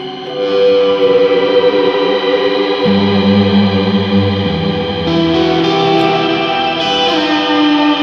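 Stratocaster-style electric guitar played live: slow notes that ring on into one another, a new chord entering about half a second in and the low note shifting about three seconds in.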